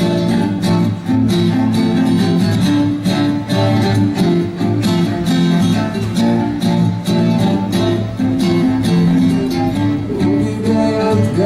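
Live indie-rock band playing an instrumental passage led by guitar, with a steady beat and no vocals.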